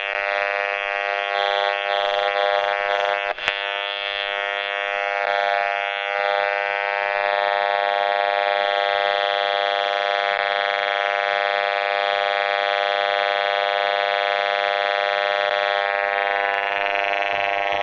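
Audio output of a handheld RF meter giving a loud, steady buzz as it picks up the microwave signal of a cordless phone base station, which transmits continuously even when no call is being made. One click about three and a half seconds in.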